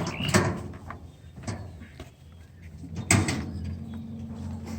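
Two sharp knocks of steel roof-frame tubing being handled, about three seconds apart, with a steady low hum after the second.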